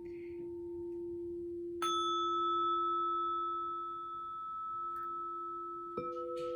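Struck tuning forks ringing as pure, steady tones. A low tone rings on from just before, a higher fork is struck about two seconds in with a brief bright clang, and a third, middle tone is struck near the end, all sounding together.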